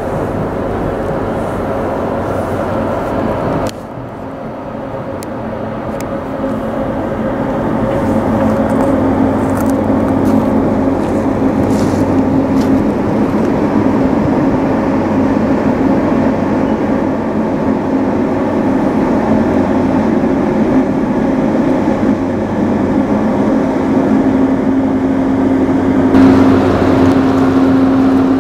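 Steady low drone of ship engines from a harbour tug and a bulk carrier, with a hum held at one pitch; it drops away abruptly a few seconds in, then builds up louder over the next several seconds. Near the end a rushing sound of propeller wash churning at the carrier's stern joins in.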